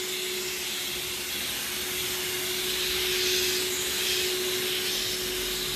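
Pressure washer rinsing foam off an electric scooter at gentle pressure: a steady hiss of the water jet spraying onto the scooter and the pavement, with a steady hum underneath.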